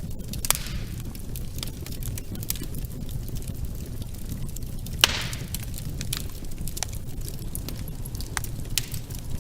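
Wood fire in a fireplace crackling, with scattered sharp pops over a steady low rumble; the loudest pop comes about five seconds in.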